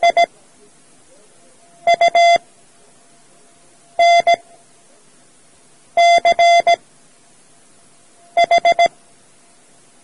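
Morse code practice tones: a single-pitched beep keyed in dots and dashes, sent as five separate characters about two seconds apart, the slow letter spacing of a learner's code tape. The characters spell out the practice word LUNCH (L, U, N, C, H), with four quick dots for the H near the end.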